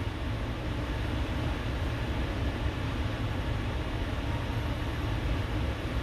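Steady low rumble and even hiss of background noise, with no distinct events.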